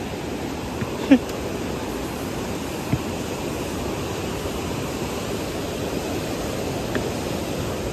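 Steady rushing of a river, with a few brief knocks, the loudest about a second in.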